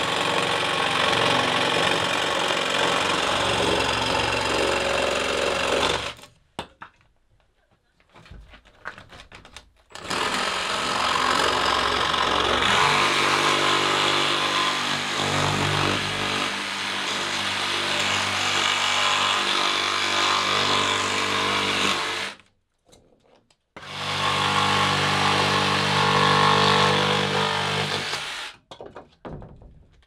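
Handheld electric sheet sander buzzing against an OSB panel, run in three long spells with short stops between them, and switched off near the end.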